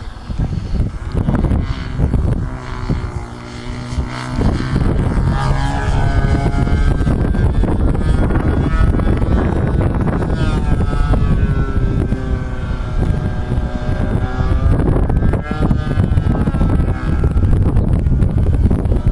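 Radio-controlled model airplane's engine buzzing as the plane flies around, its pitch rising and falling repeatedly as it passes and changes throttle. Wind buffets the microphone throughout with a heavy low rumble.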